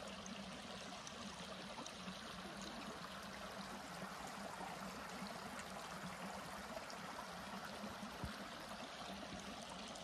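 A small river flowing: a steady rushing and trickling of running water.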